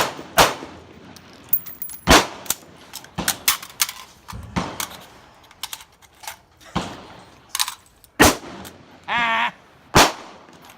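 Gunshots from an AR pistol: several sharp shots at irregular spacing, each with a short echo, among other fainter shots from the range. A short voice-like call comes a little after 9 s.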